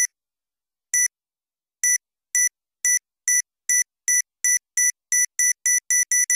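Electronic beeps at one fixed high pitch, repeating faster and faster until they almost run together into one tone near the end.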